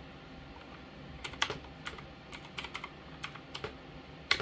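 Computer keyboard keystrokes: a quick, irregular run of about ten key presses starting about a second in, then one louder keystroke near the end.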